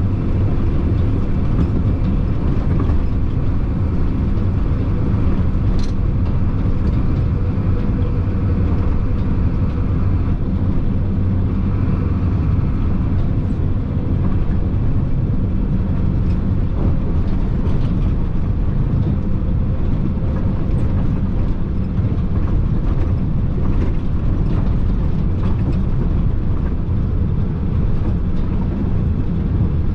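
Chenglong concrete mixer truck driving along a concrete road, heard from the cab: the diesel engine runs steadily under tyre and road rumble, with occasional faint clicks and rattles.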